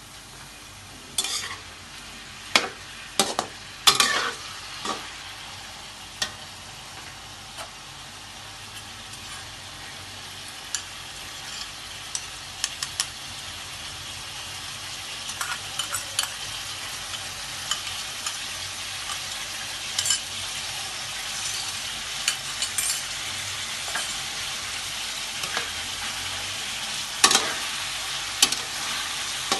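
Food sizzling as it fries in hot oil in a pan, the sizzle growing steadily louder, with a spatula scraping and knocking against the pan now and then, most often near the start and near the end.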